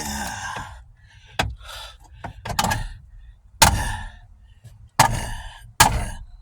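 A short grunt of effort, then a series of sharp knocks and bangs, the loudest three coming about a second apart in the second half: a car part being struck or wrenched to break off a jammed part.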